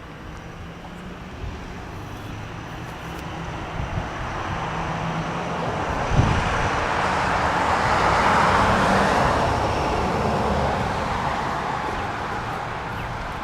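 A road vehicle passing by: its noise swells to a peak about eight seconds in and then fades, with a single thump about six seconds in.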